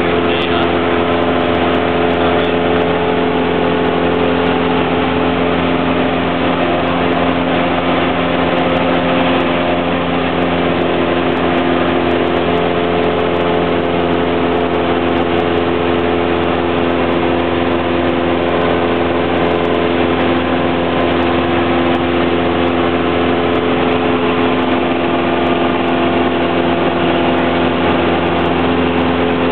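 Steady drone of a Cessna 172's piston engine and propeller in flight, heard from inside the cabin: a constant engine hum with no change in speed.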